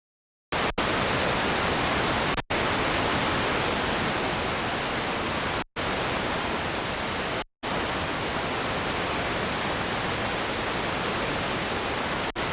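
Loud, even static hiss, like white noise, that starts abruptly from dead silence and cuts out completely for a split second four times.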